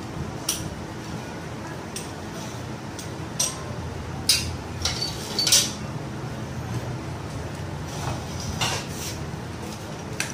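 Irregular metal clinks and taps of steel parts and hand tools being handled while the gearbox is fitted to a Royal Enfield Bullet engine. Several come in quick succession in the middle, with a steady low hum underneath.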